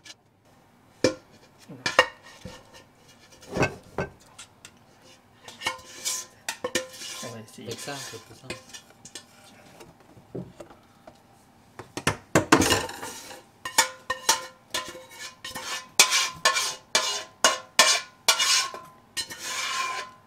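Metal kitchen utensils knocking, clinking and scraping against dishes and pans while a lasagna is assembled: irregular knocks, some with a short ringing tone, and a longer scrape about twelve seconds in.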